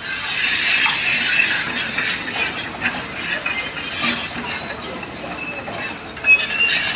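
Steady metallic rattling and clanking from heavy machinery, with a brief high squeal about six seconds in.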